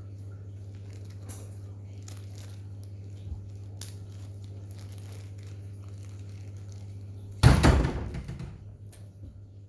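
Scattered light clicks and rustles over a steady low hum, then a loud thump with rustling about seven and a half seconds in that dies away over about a second.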